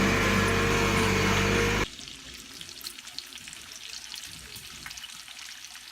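Background music that cuts off abruptly about two seconds in, followed by a faint crackling with many fine ticks.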